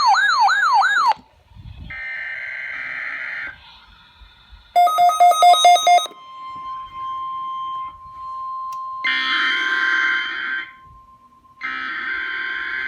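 Emergency alert broadcast tones: a fast, repeatedly sweeping siren-like tone that cuts off about a second in, then several short buzzing EAS digital data bursts. From about halfway a steady single-pitch tone sounds under them: the National Weather Service 1050 Hz warning alarm tone being tested.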